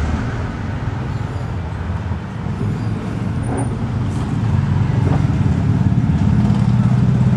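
A motor vehicle engine running steadily nearby, a low pitched rumble that grows louder over the last few seconds.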